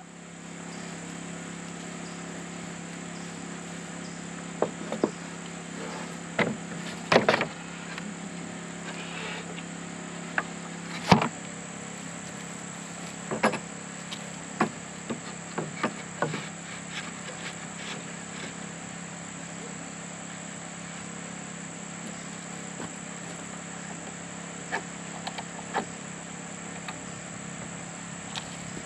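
Insects buzzing steadily at a high, even pitch, with scattered knocks and clatters of wooden pallet boards being laid and shifted; the sharpest knock comes about eleven seconds in.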